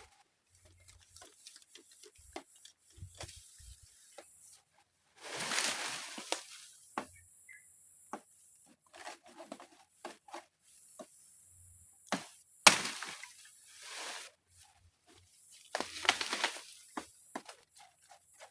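Handling noises: scattered clicks and knocks with two longer bursts of rustling, and one sharp knock, the loudest sound, a little past the middle.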